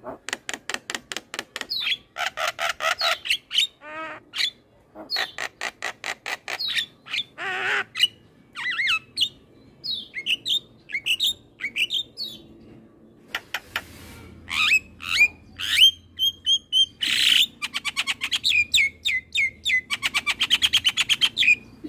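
Javan myna singing a long, varied song: fast chattering rattles of rapid notes alternating with short whistled glides and harsh squawks.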